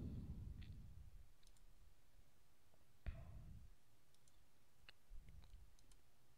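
A few faint computer mouse clicks over near silence, the clearest about three seconds in.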